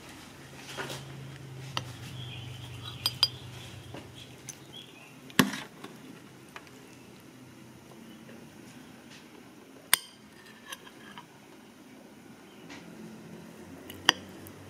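Metal cutlery clinking against a dish and plate: a handful of sharp, separate clinks, the loudest about five seconds in and another near the end.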